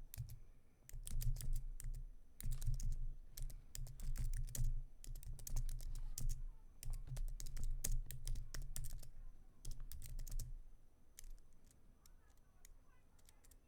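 Typing on a computer keyboard: runs of quick keystrokes, thinning to a few scattered key clicks over the last few seconds.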